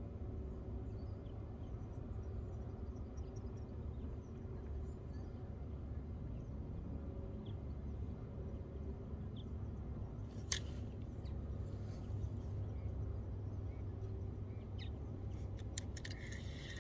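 Steady low rumble of outdoor ambience on the water with faint, scattered bird chirps. A sharp click comes about ten seconds in, and a few more clicks near the end.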